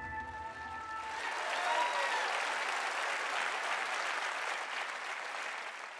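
Audience applauding at the end of a circus act, taking over as the last held notes of the music die away about a second in, then fading out near the end.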